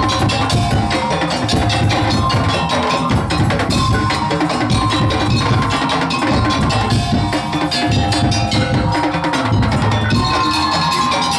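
Madurese daul (tong-tong) ensemble playing: fast, dense percussion of wooden slit drums and drums, with steady pitched tones held over the beat.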